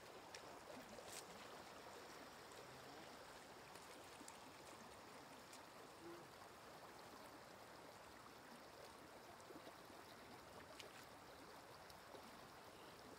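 Faint, steady rush of shallow running water, with a few light clicks.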